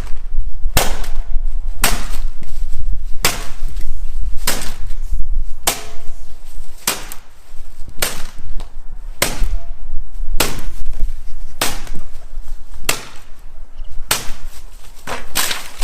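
Heavy blows struck at an even pace, about one every 1.2 seconds, each a sharp crack, over a steady low rumble.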